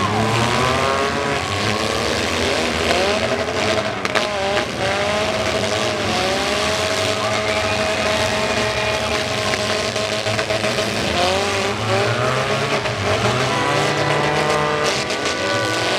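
Several four-cylinder demolition derby cars revving hard at once, their engine notes rising and falling over each other as they push and ram, with a crash about four seconds in.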